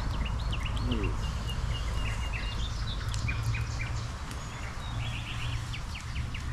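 Small birds chirping and calling, with a quick trill about five seconds in, over a steady low rumble.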